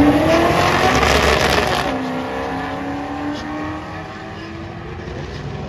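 A car engine accelerating, its note climbing in pitch, then settling into a steady, slightly falling note that grows fainter.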